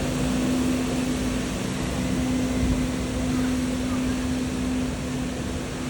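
Engine of a canal boat running steadily as it comes through an opened lock, a constant low hum.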